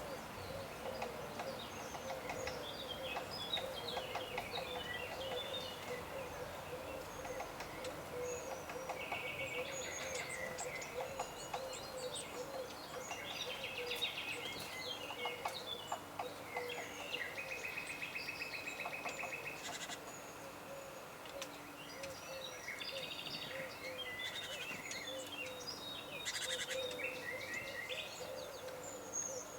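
Forest birdsong: several birds chirping, whistling and trilling over one another, including an even, rapid trill a little before the middle, over a steady, low, repeated note in the background.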